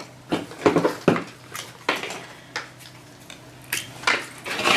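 Small plastic toy figures being picked up and set down on a tabletop: a scattering of light clicks and knocks, irregular and a fraction of a second apart or more.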